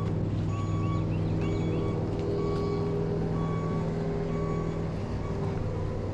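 An engine running steadily, with a short beep repeating about once a second over it and small bird chirps.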